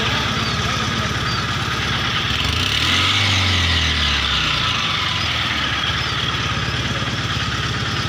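A motor vehicle's engine idling steadily, with a low hum that swells and then falls away about three seconds in.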